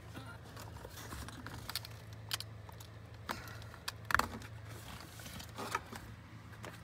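Scattered small clicks and plastic rattles from a hand groping behind a lower dashboard trim panel to work loose the flasher relay, the sharpest click about four seconds in, over a steady low hum.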